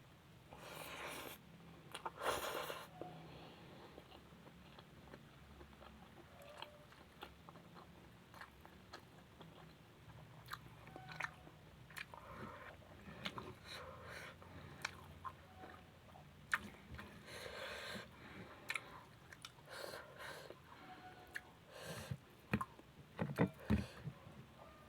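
Close-miked chewing and biting of food, with many small wet mouth clicks. There are two louder crunchy bites a second or two in, and a burst of sharper clicks near the end.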